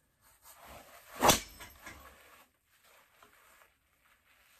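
A golf driver swung hard into a ball, one sharp crack of impact about a second in: a well-struck drive.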